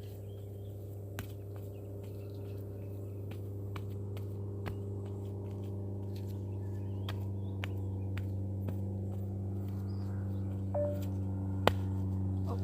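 A steady low hum that slowly grows louder, with scattered light clicks and taps and a sharper click near the end.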